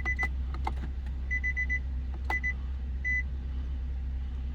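Short, high-pitched electronic beeps in quick irregular groups, with a few sharp clicks, over a steady low hum, during smart-key programming on a car.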